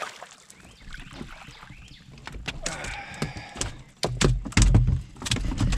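A hooked largemouth bass being fought and landed on a baitcasting rod and reel: reel and line noise with scattered clicks and splashy rasping, then heavy thumps and handling noise near the end as the fish is lifted aboard.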